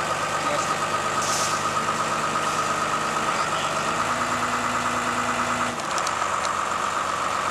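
Diesel engine of a Komatsu D41E crawler bulldozer running steadily, its low note changing partway through and dropping out near the end.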